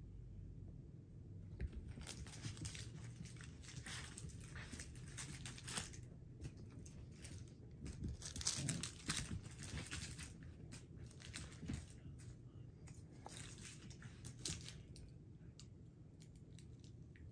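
Faint, irregular rustling and crinkling with scattered small clicks, busiest about halfway through.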